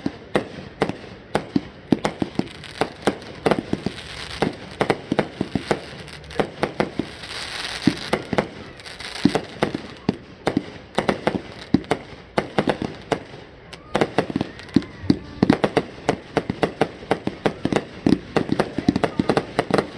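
Fireworks firing in quick succession: a continuous run of sharp bangs, several a second, with a stretch of hiss about seven to nine seconds in.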